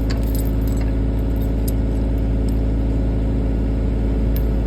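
Diesel engine of a construction machine running steadily at idle, a continuous low hum, with a few faint metallic clinks.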